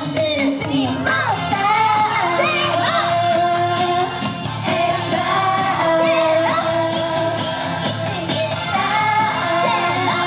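Upbeat Japanese idol-pop song with female vocals and a steady beat, its sung lines held and gliding.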